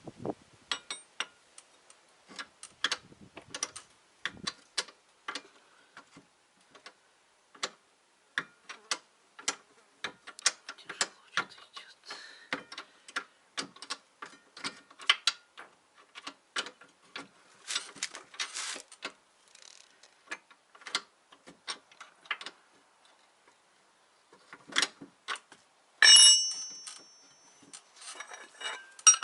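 Hand ratchet wrench clicking in runs of quick clicks that stop and start as fasteners are turned on a car's rear brake assembly. A louder ringing metallic clank comes about 26 seconds in.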